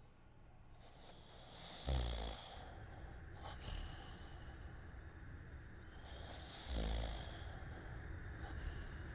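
A person snoring in sleep: two slow, heavy breaths about five seconds apart, each ending in a loud snore.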